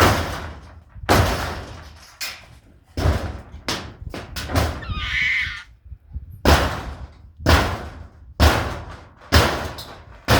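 Heavy blows striking the wooden barn structure during demolition, about one a second with short gaps. Each blow is loud and sharp and rings out briefly. A brief high squeal comes about five seconds in.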